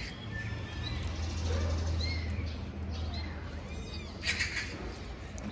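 Several short, high chirping calls, each rising and falling, over a low rumble, with a brief crackle about four seconds in.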